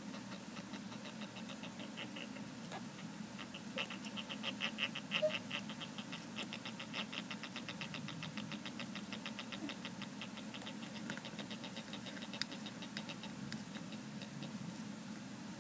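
Land hermit crabs chirping during a shell fight: a fast, even train of short, high chirps, louder about four to six seconds in and thinning out near the end. It is the agitated chirping a hermit crab gives while it fights for another's shell.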